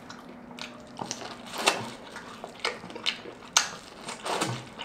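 Close-miked eating: a run of wet chewing and smacking sounds, with a bite into a consommé-dipped birria taco near the end.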